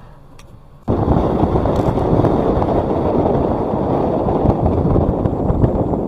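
Loud, rough rumbling noise that starts suddenly about a second in and keeps on: a vehicle moving over a rough track, with wind buffeting the microphone.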